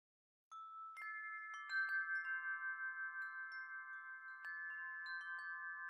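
Tuned wind chime tubes being struck and ringing, starting about half a second in. Many quick strikes leave long, overlapping tones of several pitches hanging in the air.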